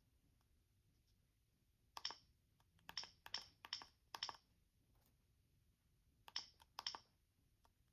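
Keys on a Gigaset Comfort 552A cordless phone handset being pressed: seven short, sharp clicks, a run of five and then two more a couple of seconds later.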